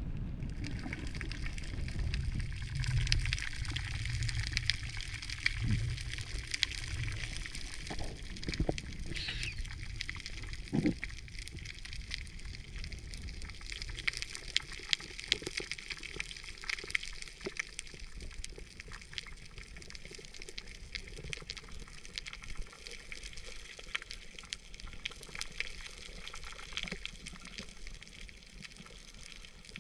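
Underwater ambience over a coral reef, heard through a camera housing: a dense scatter of small clicks and crackles throughout, with a low rumble of water movement over the first eight seconds or so.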